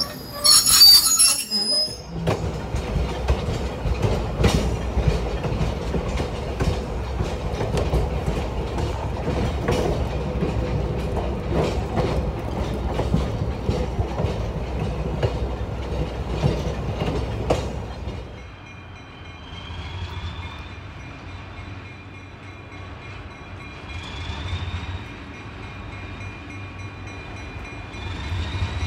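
Railroad car wheels squeal briefly as a passenger car rolls past. Then comes the steady low rumble of riding on the train, with clicks of wheels over rail joints. After that an ALCO diesel locomotive works toward the listener, quieter, with a high whine that rises twice.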